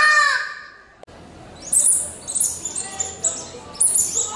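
An imitated goose honk dies away at the start. From about a second and a half in comes a run of short, very high squeaks: a hunter's call imitating a striped field mouse, the prey voice used to lure predators.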